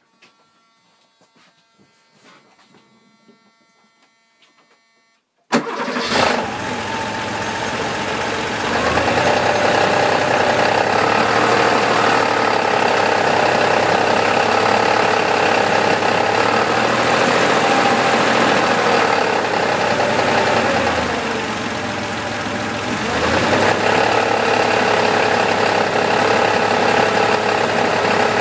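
Porsche 3.2-litre engine starting about five seconds in, after a quiet stretch with a few faint ticks, then running with its speed wandering up and down and easing off briefly near the end. It makes a noise the owner calls strange.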